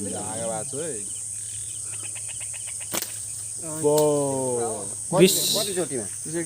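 Crickets chirring steadily on one high pitch, with a few short pitched voice-like sounds over it, the loudest about four and five seconds in, and a single click near the middle.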